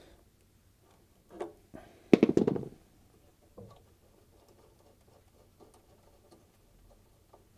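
Light metallic clicks and a short scrape, about two seconds in, from a hand tool loosening the nut that holds a washing machine's heating element, followed by faint irregular ticks.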